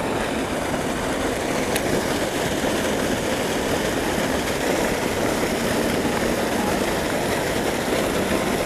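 Steady, even rush of water gushing from a spillway outfall pipe into a creek running high after flooding.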